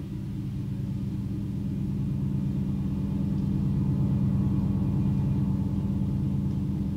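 Electronic synthesizer music: a low drone of many held tones with a fast flickering texture, growing louder over the first few seconds.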